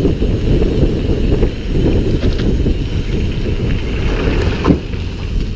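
Wind buffeting a bike-mounted camera's microphone while riding a mountain bike on a paved road, a steady low rumble mixed with tyre and road noise. A single sharp knock near the end, as from a bump in the road.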